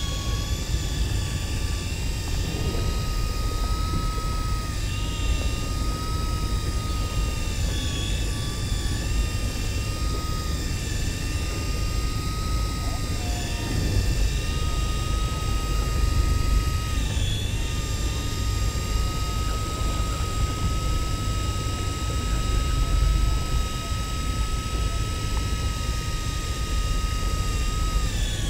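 Steady low rumble of a boat's engine and hull, with a high motor whine from an electric fishing reel winding line in. The whine's pitch dips briefly a few times, as the reel slows under load.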